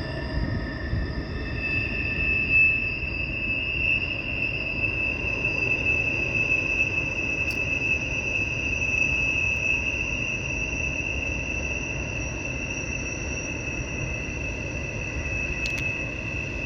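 Freight train rolling past with a steady low rumble of wheels on rail and a continuous high-pitched wheel squeal. The squeal shifts to a higher tone about a second and a half in and then holds.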